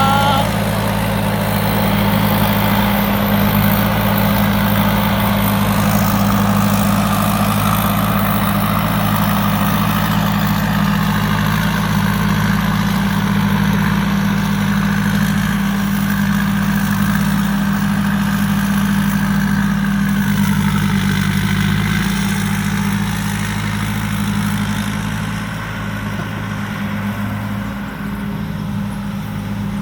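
Thai Seng Super Jiw combine harvester's diesel engine running steadily, easing slightly quieter near the end.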